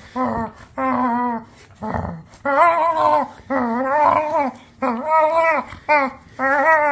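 Chocolate Chesapeake Bay retriever vocalizing in play while being rubbed, a run of about seven drawn-out, howl-like calls, roughly one a second, each bending up and down in pitch.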